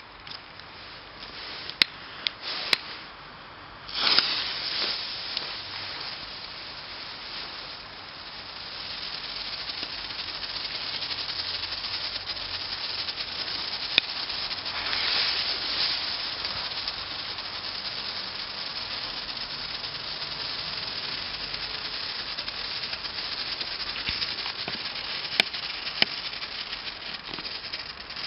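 Comet Colour Flasher strobe tablets burning on the ground: a dense, steady fizzing crackle that grows louder from about eight seconds in. A short loud burst of fizzing comes about four seconds in, and a few sharp clicks are scattered through.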